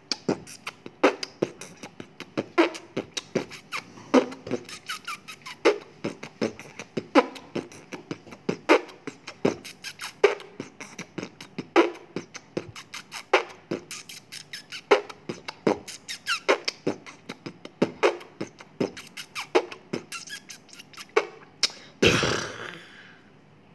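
A rhythmic percussive beat with no melody, a strong hit about every one and a half seconds and quicker light ticks between. A short rushing whoosh comes near the end.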